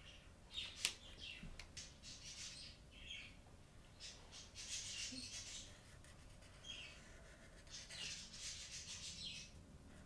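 Chisel-tip marker scratching and squeaking faintly across paper in several separate strokes, each lasting up to about a second, as a letter is drawn.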